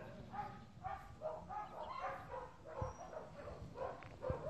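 Dogs barking: a steady run of short, fairly faint barks, about three a second.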